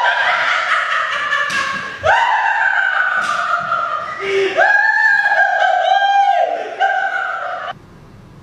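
High-pitched, warbling ghostly laughing shriek in the manner of a kuntilanak: four long drawn-out cries, each jumping up and then sliding slowly down, cutting off suddenly near the end.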